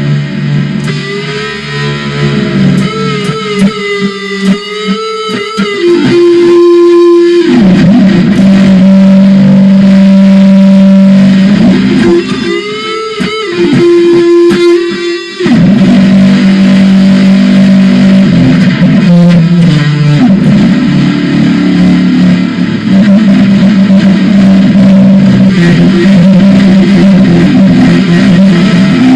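Very loud electric guitar music: held notes and notes bent up and down over a heavy low tone, which drops out twice for a moment.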